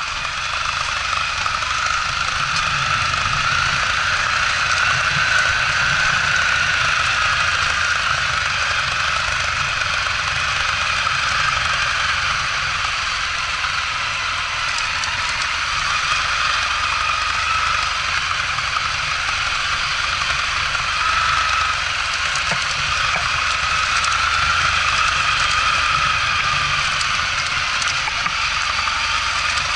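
Small trail motorcycle engines running at low speed on a rough dirt track, the pitch rising and falling gently as the throttle is worked. The engine sound is mixed with steady rushing noise from the ride.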